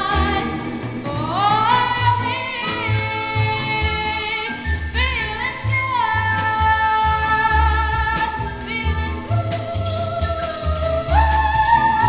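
A singer holds long, wavering notes with vibrato, sliding up into each new note, over a band with a pulsing bass line. It is played back from an LP record.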